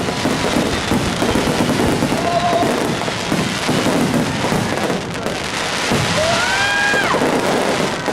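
Fireworks going off, a dense continuous crackle and rumble, with a crowd of spectators talking underneath.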